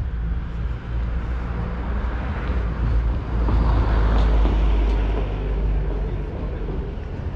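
A road vehicle passing on the street. Its engine and tyre noise swells to a peak about four seconds in, then fades, over a steady low rumble.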